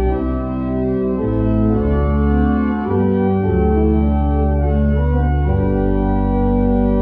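Church pipe organ playing slow, sustained chords over deep bass notes that change about once a second.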